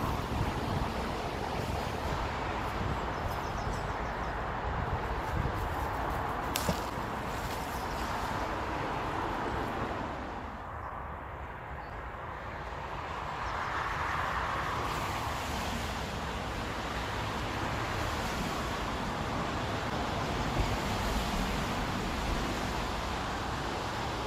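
Wind buffeting the microphone, a steady low rumble of outdoor noise that eases briefly and swells again. One sharp click about six and a half seconds in.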